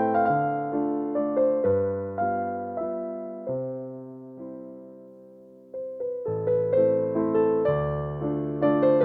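Background piano music: a gentle electric piano melody that dies away to a near pause about five seconds in, then picks up again.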